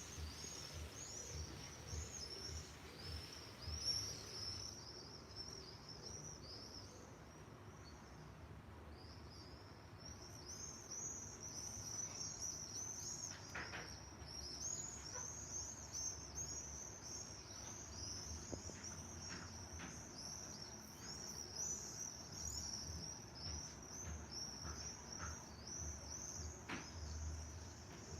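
A chorus of many small birds chirping rapidly and continuously, thinning for a few seconds early on and then filling out again, over a low rumble.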